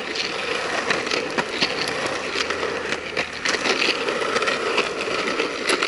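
Skateboard wheels rolling over rough asphalt: a steady rolling hiss with frequent small clicks and ticks.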